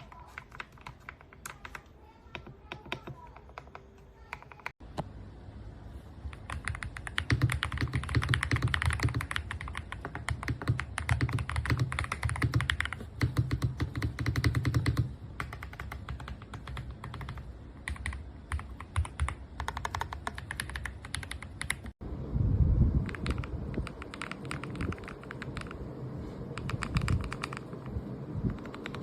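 Typing on a GMK67 mechanical keyboard: rapid key clacks in runs of varying speed, loudest and densest in the middle, with abrupt cuts about 5 and 22 seconds in.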